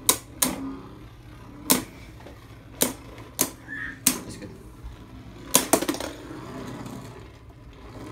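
Two Beyblade Burst spinning tops circling in a plastic stadium and clacking sharply together about eight times at irregular intervals.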